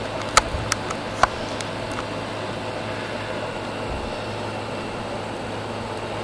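Steady mechanical hum with a hiss over it, like a fan running, and a few light clicks in the first second or so.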